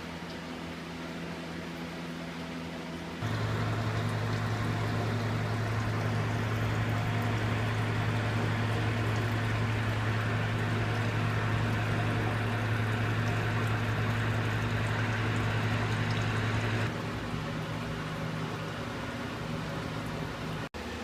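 Running water with a steady electrical hum, as from an aquarium or vivarium pump. From about three seconds in the hum and the water noise are louder, and they drop back suddenly near the end.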